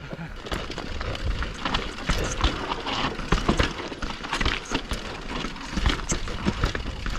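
Mountain bike clattering and rattling over a rough, rocky trail, with a rapid, irregular run of knocks and impacts over a low rumble.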